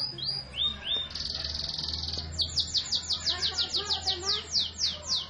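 Domestic canary singing: a couple of rising notes, a buzzy trill lasting about a second, then a fast run of repeated downward-sweeping whistles, about six a second.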